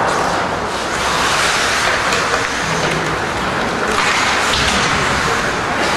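Ice hockey game in an indoor rink: a steady, noisy wash of arena sound with no single event standing out.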